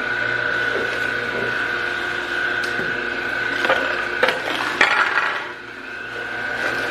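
Vertical masticating slow juicer running with a steady motor whine as its auger turns and crushes celery. A few knocks and crunches come between about three and a half and five seconds in, as celery pieces are dropped into the chute.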